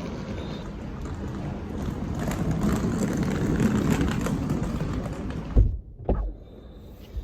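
Vehicle traffic noise swells and falls as a vehicle passes. About five and a half seconds in, a car door slams shut with a loud thud, then a smaller one. The outside noise cuts off to the quiet of the car's cabin.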